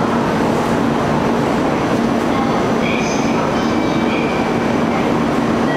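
Shinkansen station platform ambience: a steady, loud rushing din with a constant low drone underneath and a few faint, brief high tones.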